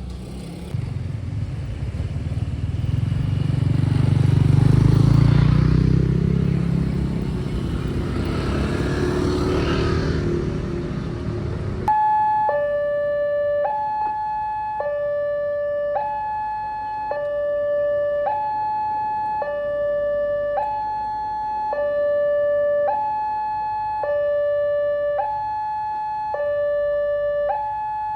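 A loud rumbling noise swells, peaks about five seconds in, and cuts off abruptly around twelve seconds in. A railway level-crossing alarm then sounds: an electronic two-tone siren alternating a higher and a lower note, about one cycle every two and a half seconds.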